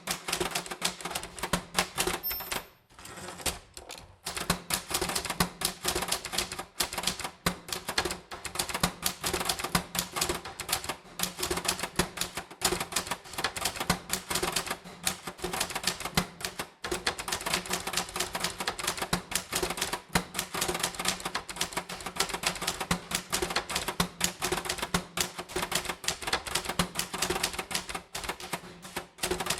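Typewriter keys striking in quick, uneven runs of clicks, with a brief high ring about two seconds in followed by a short pause.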